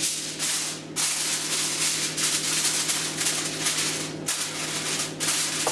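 Aluminium foil crinkling and rustling as it is pressed and folded down over the rim of a glass baking dish, with a couple of brief pauses.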